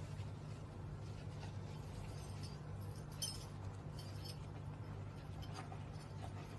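A few faint, light clinks of a knife against a plate as a ripe avocado is cut and peeled, over a steady low hum.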